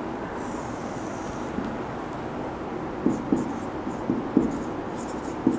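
Marker writing on a whiteboard: a faint scratch about half a second in, then a run of short, quick strokes from about three seconds on as letters are written.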